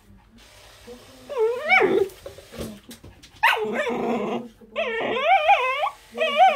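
Muzzled corgi puppy crying in protest at being groomed: four wavering, high-pitched cries, the later three longer and louder, each nearly a second.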